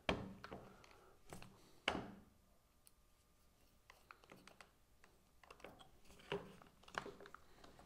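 Faint clicks and knocks as a cordless drill's chuck is tightened by hand onto a right-angle attachment, with a few sharper knocks in the first two seconds and light scattered clicks after.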